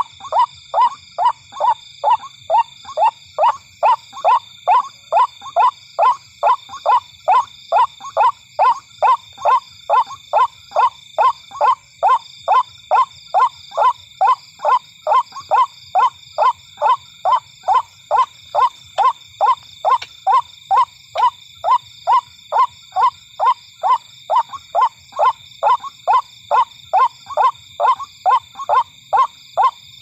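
White-breasted waterhen calling: a short falling 'kwak' note repeated evenly and without pause, about two to three times a second. This is the monotonous call played as a lure to draw waterhens at night. Steady high-pitched tones run behind it.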